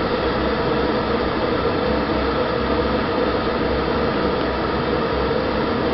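Steady mechanical hum and rumble with a faint held tone, even throughout.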